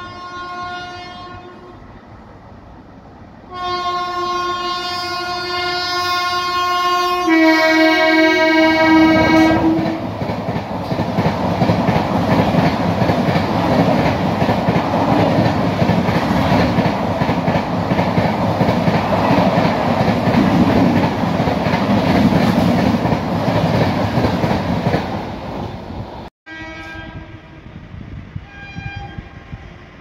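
Express train passing at speed. The locomotive horn sounds a short blast, then a long one whose pitch drops as the locomotive goes by. The loud rush and clatter of the coaches follows for about fifteen seconds, then fades, with the horn sounding faintly again near the end.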